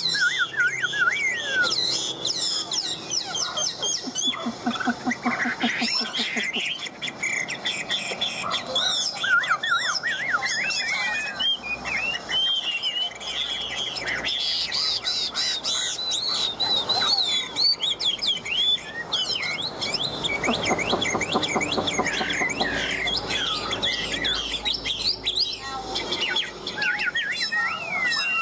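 A tame, cage-kept Chinese hwamei singing a long, varied song of rapid whistled phrases that slide up and down, with hardly a pause. Twice, around the fifth and the twenty-first second, lower buzzing passages run under the whistling.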